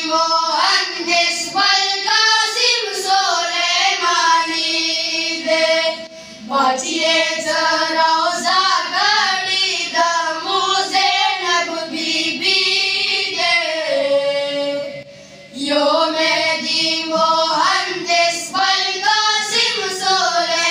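Boys' voices singing a Pashto noha (devotional lament), with a short break about six seconds in and another about fifteen seconds in.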